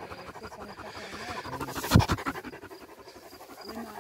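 A Galgo (Spanish greyhound) panting rapidly, out of breath after running. A brief loud bump comes about two seconds in.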